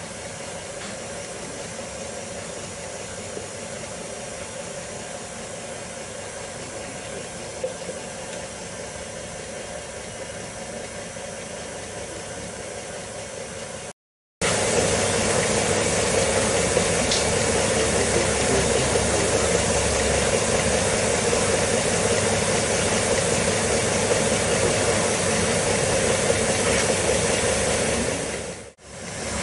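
Electric mixer motor running steadily while kneading egg pasta dough. The sound cuts out for a moment a little past halfway and comes back louder.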